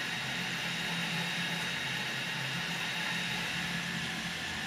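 HyperCube CoreXY 3D printer printing at 70 mm/s: a steady hiss of cooling fans with the stepper motors humming underneath as the head moves.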